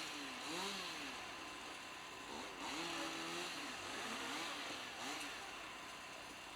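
Small engine revving up and down again and again, its pitch rising and falling about five times.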